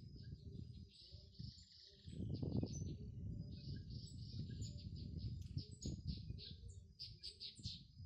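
Birds chirping: rapid series of short, high notes, coming faster in the second half, over a low rumbling background noise that swells about two seconds in.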